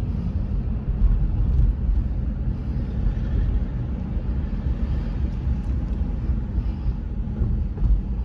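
Steady low rumble of a car in motion, heard from inside the cabin: engine and road noise.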